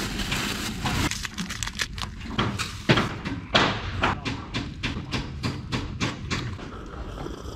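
Hammering: a fast, uneven run of sharp blows, several a second.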